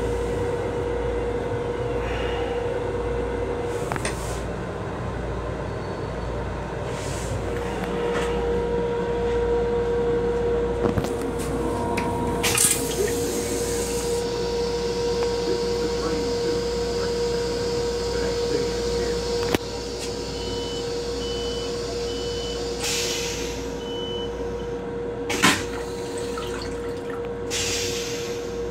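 Toilet in an M7 railcar restroom flushing: a sudden burst about halfway through, then rinse water running into the stainless steel bowl for several seconds. Under it runs the car's steady hum and the rumble of the moving train.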